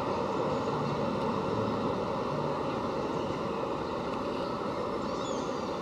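Steady outdoor city-park ambience: a continuous wash of distant traffic and people, with a few faint high chirps near the end.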